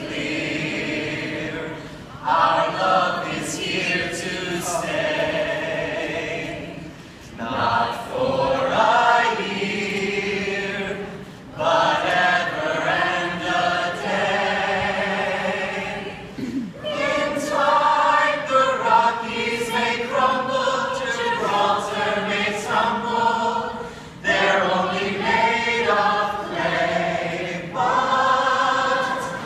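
A stage cast singing a song together unaccompanied, as a group in several long phrases with short breaks between them.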